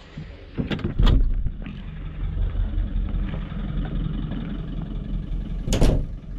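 A vehicle engine running steadily, with two sharp knocks about a second in and another loud knock near the end.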